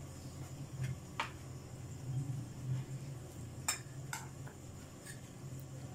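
A handful of short, light clinks and taps of a spoon against a glass bowl and dishware as cabbage-roll filling is scooped up, over a steady low hum.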